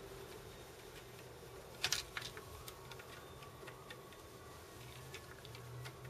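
Faint scattered clicks and ticks of a precision screwdriver working a small screw on an RCA Victor 9JY record changer's tone arm head, with a louder quick cluster of clicks about two seconds in.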